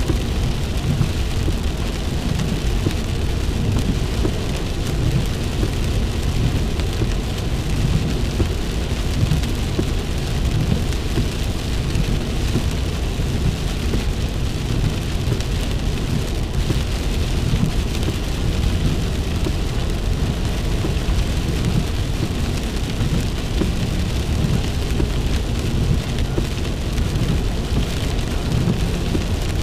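A car driving through heavy rain and standing water, heard from inside the cabin: the steady wash of rain and tyre spray over a low road rumble.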